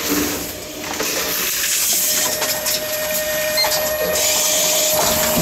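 Envipco Ultra 48 reverse vending machine running as it takes in a container: a steady mechanical whirring with small clicks, joined about two seconds in by a steady hum that stops near the end.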